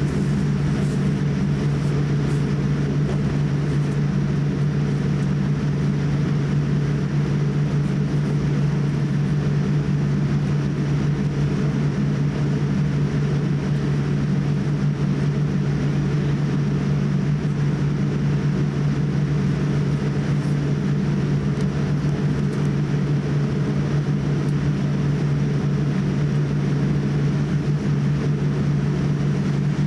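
Cabin noise inside a Boeing 787-8 taxiing: a steady low drone from the engines at taxi power and the cabin systems, unchanging throughout.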